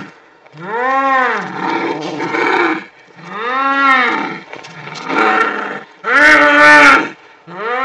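Two domestic cats yowling in a fight: a string of long, drawn-out caterwauls that rise and fall in pitch, about five in all. The one about six seconds in is the loudest and harshest.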